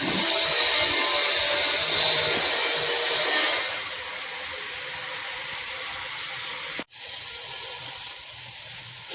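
Steady hissing whir of a power tool working on the rebuilt pinion gear. It drops noticeably in level about three and a half seconds in and breaks off for an instant near seven seconds before carrying on more quietly.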